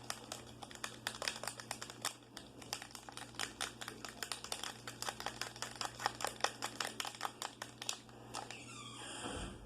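A spoon rapidly beating dish detergent and water into foam in a small pot, making fast, even clicking and tapping against the container, several strokes a second. The beating stops near the end, followed by a brief swishing sound.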